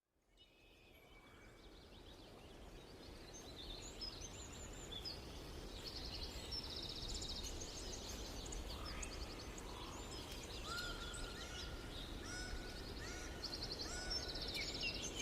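Many small birds chirping and giving fast high trills over steady outdoor background noise, fading in over the first few seconds, with a run of short rising calls in the middle.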